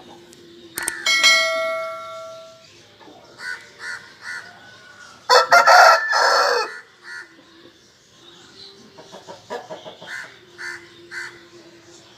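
Aseel rooster crowing once, a call of about a second and a half near the middle, with short clucks before and after it. About a second in, a single metallic clang rings and fades over a second or so.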